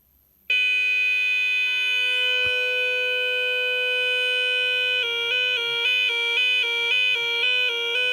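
Intruder alarm sounder on a 1994 DA Systems Abacus 6P alarm panel going off. It starts loud about half a second in on one steady, buzzy tone, then about five seconds in it switches to a two-tone warble, flipping quickly back and forth between two pitches.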